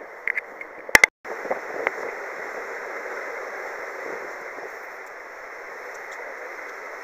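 Steady rushing of sea water and wind as a square-rigged tall ship sails. A couple of sharp knocks and a brief break come about a second in.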